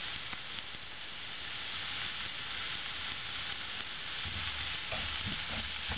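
Chopped onions sizzling steadily as they fry in a little oil in a non-stick kadai, with a few soft low knocks near the end.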